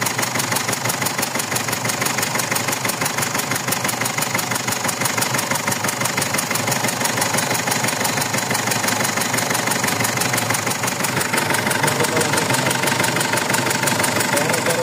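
Mazda BT-50's 3.0 L WE four-cylinder turbo diesel idling with a steady, even diesel clatter, a little louder near the end. The mechanics have found a compression leak at the number 3 injector's seal, where gas is escaping.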